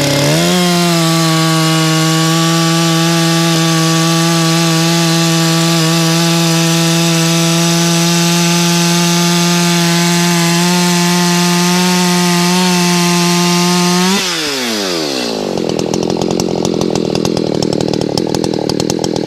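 Two-stroke Echo chainsaw revving up and running at full throttle, steady in pitch, as it cuts through a log with a chain whose teeth are filed to uneven lengths. About 14 seconds in the throttle is released, the engine note drops quickly, and the saw settles to a rattling idle.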